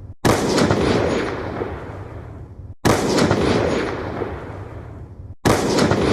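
The 'Ballista Slow' sound effect, a slow, heavy ballista shot, heard three times. Each plays about two and a half seconds apart, begins with a sudden loud strike and fades out.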